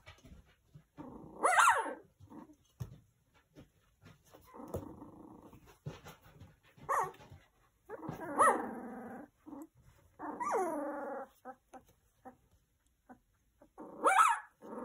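Three-week-old puppy trying out its voice: about six small yelps, yips and growly barks, a second or more apart, several of them sliding down in pitch.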